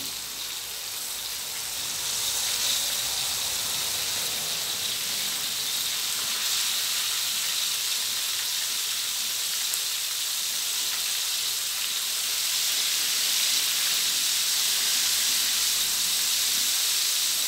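Chicken wings deep-frying in a wok of hot oil: a steady sizzle and hiss that grows a little louder about two seconds in.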